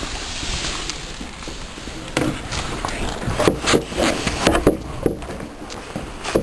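Footsteps of a player moving quickly on a hard floor: irregular thuds from about two seconds in, after a stretch of rushing hiss.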